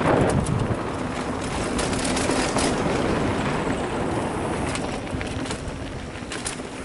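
Mountain bike riding fast down a dirt flow trail through berms: wind rushing over the microphone, tyres crunching on dirt and loose gravel, and the bike rattling and clicking over bumps.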